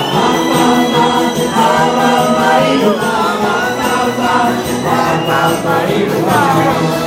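Loud music filling a crowded hall, a continuous melody with sliding notes over a dense steady backing.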